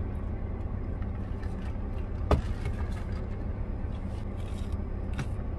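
Steady low rumble of a parked Mazda 3 running, heard inside the cabin, with a sharp click about two seconds in and a few faint ticks.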